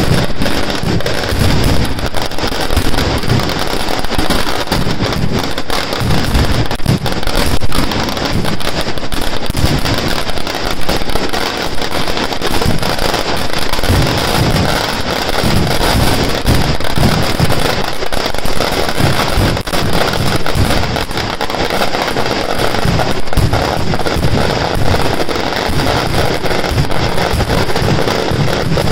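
A firecracker and fireworks barrage going off without a break: a dense, rapid string of loud bangs and crackling, with rockets shooting up.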